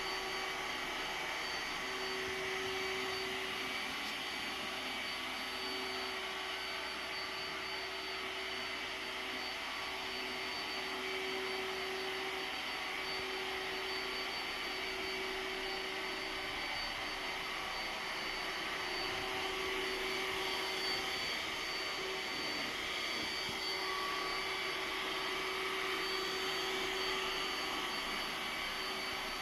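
iRobot Roomba s9+ robot vacuum running on a kitchen floor: a steady motor whir with a thin high whine and a lower hum that comes and goes as it drives its back-and-forth cleaning passes.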